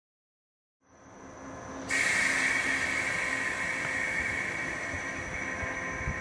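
KuMoYa 443 inspection electric train setting off from a brief stop, its running noise fading in, with a loud steady hiss that starts suddenly about two seconds in.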